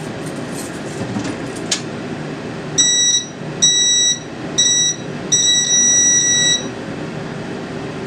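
Fire-Lite FireShield fire alarm control panel's piezo buzzer beeping four times, three short beeps and a longer one of over a second, as the controls inside its opened door are worked. Under it a steady hum, most likely a room fan.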